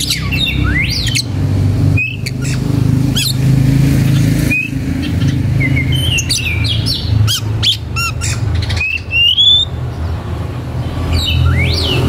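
Birds chirping and squawking in short rising and falling calls over a steady low hum.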